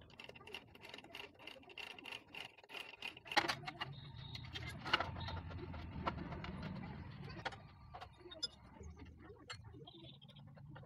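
Scattered light metallic clicks and knocks of hand tools working on a Yamaha RX100 motorcycle's engine and gear-lever parts, irregular and unevenly loud.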